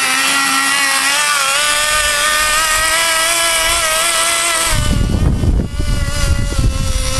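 Small nitro glow engine of a Kyosho Blizzard RC snowcat, running at a steady high pitch on 10% nitro fuel before any tuning, stepping up slightly about a second in. About two-thirds of the way in a low rough rumble joins it while the engine keeps running.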